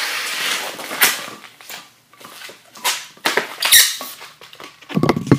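Long latex twisting balloon being inflated and handled: a rush of air at first, then repeated squeaks and rubbing of the rubber, with a dull thump near the end.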